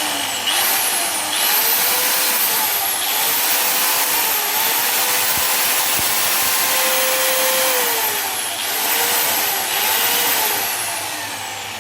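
A Dongcheng 5-inch (125 mm) angle grinder runs free with no load at full mains power, with a high whine over the motor noise. Its speed dips and recovers several times, then it winds down near the end with a falling whine.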